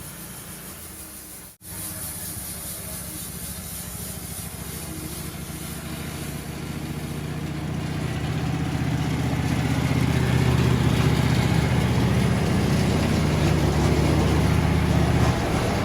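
Sawmill running as it cuts a length of corrugated plastic pipe in half: a steady engine sound that breaks off for an instant about a second and a half in, grows louder through the middle of the cut, and eases off near the end.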